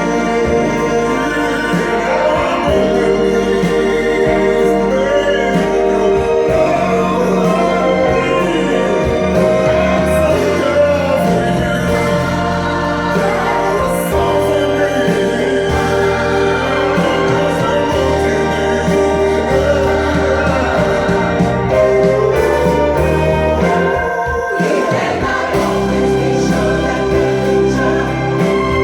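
A soul-jazz song with sung and choir-like backing vocals over a steady bass line, playing loud through a home-built speaker system. The music thins out briefly about 24 seconds in.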